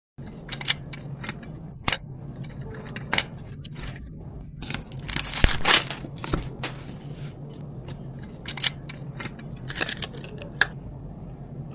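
Hands handling PC parts and their packaging: a run of sharp clicks and short scrapes, with a longer stretch of rustling and scraping near the middle, over a steady low hum.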